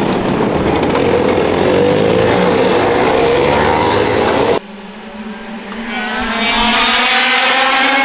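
A grid of 100cc two-stroke racing kart engines being push-started and running together in a loud, dense blare. About four and a half seconds in it cuts off suddenly, and a rising, building note follows as a pack of karts accelerates and draws closer.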